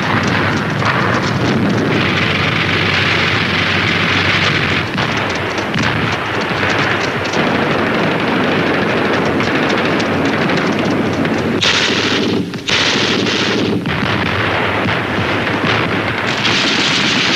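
Battle sound effects of dense, continuous gunfire: rapid rifle and machine-gun shots overlapping, with a short break about twelve and a half seconds in.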